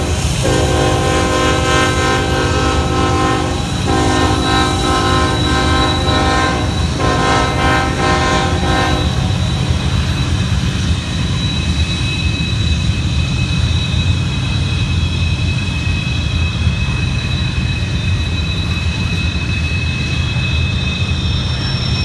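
Norfolk Southern freight locomotive's air horn sounding three long blasts with brief breaks between them, stopping about nine seconds in, over the low rumble of the passing train. After the horn, thin high steady wheel squeal rings out over the rumble as the train works around the sharp curve.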